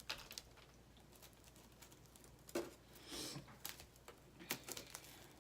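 Faint, scattered taps and rustles of a wafer package being handled, with one short rustle about three seconds in.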